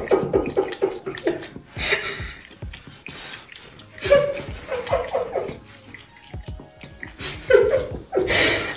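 Water running from a bathroom sink tap into the basin, broken by several short pitched voice-like sounds, the loudest near the end.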